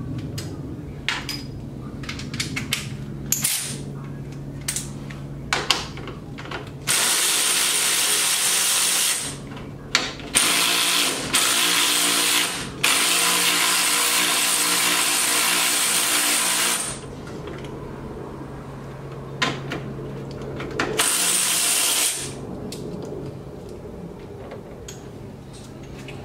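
Tools clicking against metal over a steady low hum, then a handheld power drill running in several bursts, the longest about four seconds, with one more short burst a few seconds before the end.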